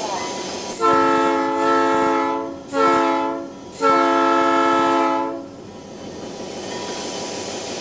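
Locomotive air horn sounding a chord in three blasts, long, short, long, pulled from the cab by its cord, over the steady running of the locomotive.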